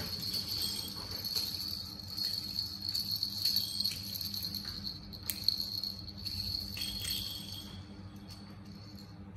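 Plastic baby rattle toy jingling and rattling as a small monkey shakes and carries it, with a few sharp clicks; it dies down near the end. A steady high-pitched tone runs underneath throughout.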